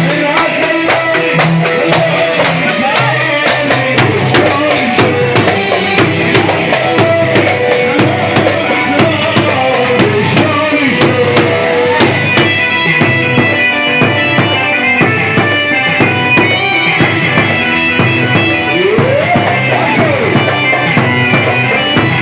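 Instrumental music with a steady drum beat under a wavering melodic lead, which slides up and back down in pitch near the end.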